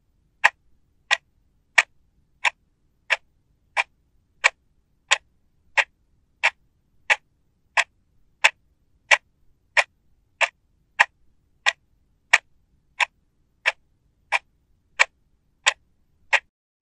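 Clock ticking steadily, about three ticks every two seconds, each a short sharp click with dead silence between them.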